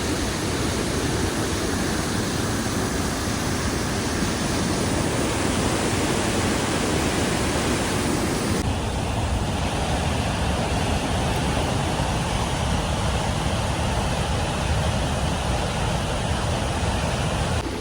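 Steady rushing noise of a waterfall, with no distinct events; its tone shifts abruptly about nine seconds in.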